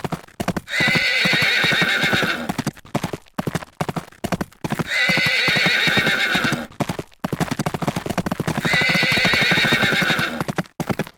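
Horse whinnying three times, each call about two seconds long and about four seconds apart, with rapid hoof clip-clops running between and under the calls.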